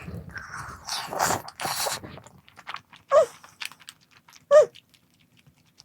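Close-up eating sounds: crunching and chewing for the first two seconds, then two short voiced sounds from the eater.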